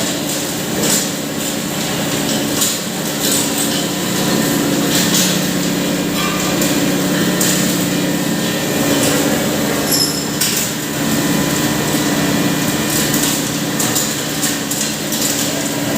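Impact pulverizer (hammer mill) running while grinding turmeric: a steady motor hum under a constant rushing grind, with irregular sharp knocks and clatters as the pieces are struck.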